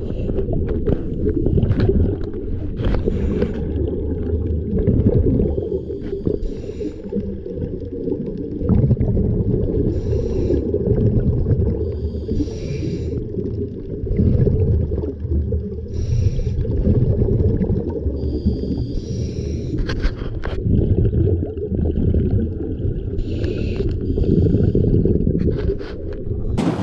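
Muffled underwater sound picked up through a camera housing: a steady low rumble with a diver's breathing, a breath every few seconds.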